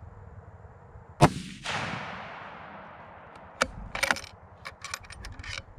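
A single shot from a scoped Remington .308 bolt-action rifle about a second in, its report echoing and fading over about two seconds. It is followed by a series of short metallic clicks and clacks as the bolt is worked.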